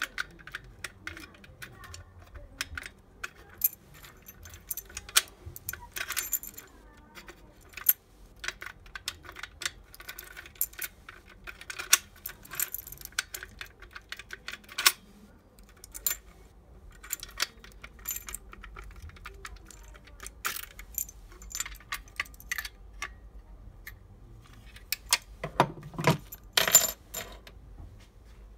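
Key being turned in the cylinder of a Motor Sich ZV-7 mortise lock: a long run of sharp metallic clicks from the cylinder and bolt mechanism, with the other keys on the ring jingling. Near the end come a few louder knocks as the lock is set down on the wooden table.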